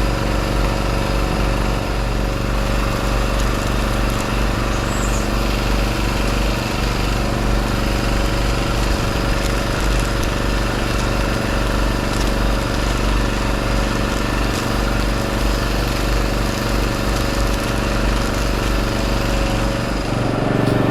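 A small engine running steadily, a continuous even hum without letup.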